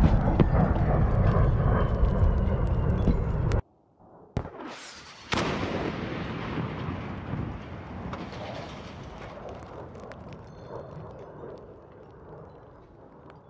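Heavy rumble of a large explosion dying away, cut off abruptly about three and a half seconds in. Then, after a short falling hiss, an AGM-65 Maverick missile detonates on its target with a sharp blast about five seconds in, its rumble fading slowly.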